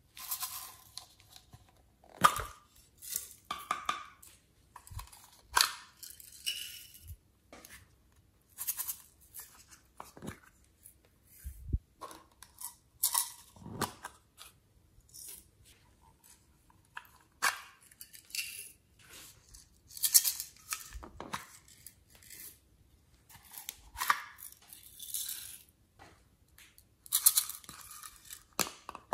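Small plastic slime containers being handled and opened: irregular sharp clicks and taps of plastic lids, with crinkly tearing and peeling sounds in between.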